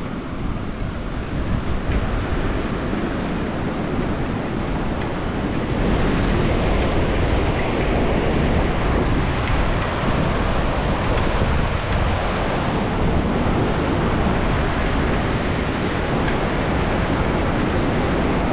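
Wind buffeting the microphone over the steady rush of a glacier-fed river's rapids below a suspension footbridge, growing louder about six seconds in.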